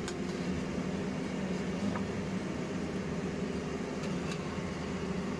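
Steady fan hum with a few faint light clicks.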